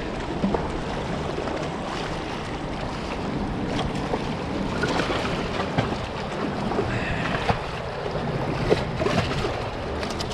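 Surf washing against the rocks of a jetty, with wind buffeting the microphone, and a few brief knocks along the way.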